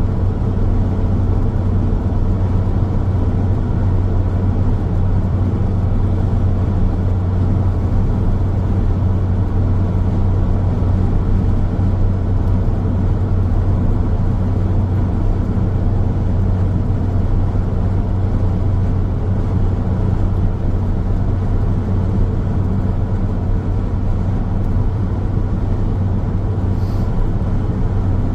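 Steady road noise of a car driving: an even, low rumble of tyres and engine that does not change.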